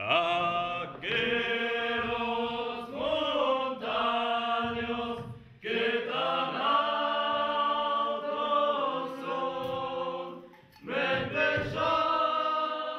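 A group of voices singing together in long held notes, a slow chant-like song sung in several phrases with short breaks for breath between them.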